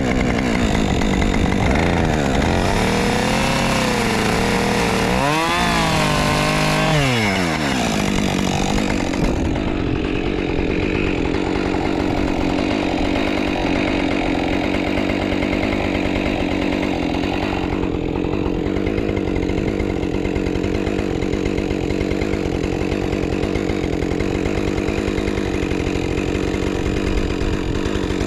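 Husqvarna 550 XP two-stroke chainsaw revving up and down a few times, then held steady at high revs from about nine seconds in as it cuts into wood.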